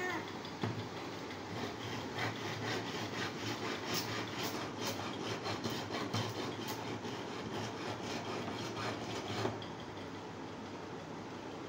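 Short hand saw cutting a thin wooden board, repeated back-and-forth strokes that stop about nine and a half seconds in.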